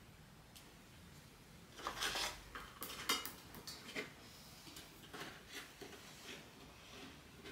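Unboxing handling noises as a large plush doll is shifted and lifted in its moulded packaging insert: scattered rustles and scrapes, with a sharp click about three seconds in.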